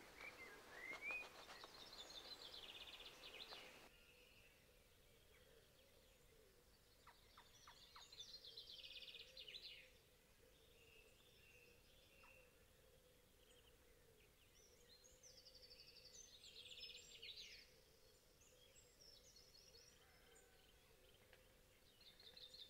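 Faint birdsong: a songbird singing short, fast trilled phrases about every eight seconds, with a faint steady hum underneath.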